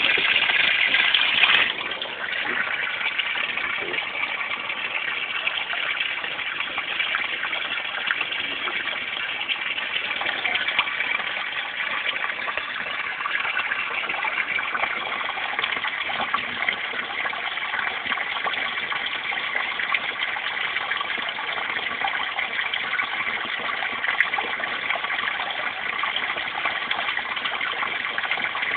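Pond waterfall splashing steadily as water spills over rock ledges into a koi pond. It is louder for the first second and a half, then settles to an even rush.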